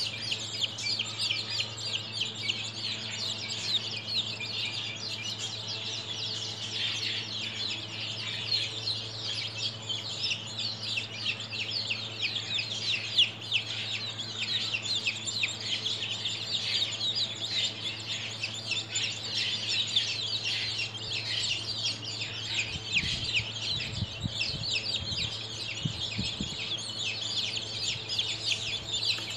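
A flock of two-week-old baby chicks peeping constantly, many short high-pitched calls overlapping without a break. A steady low hum runs underneath.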